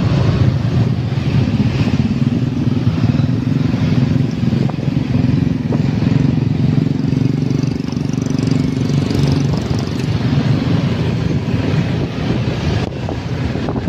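Motorcycle engines running steadily in slow, congested street traffic, a continuous low engine drone that holds an even pitch.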